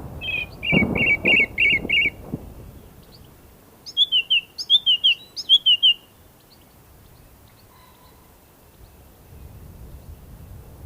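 Songbirds chirping: a quick run of about five chirps in the first two seconds, then about four seconds in, three pairs of short downslurred whistled notes. A low wind rumble underlies the start, dies away, and comes back faintly near the end.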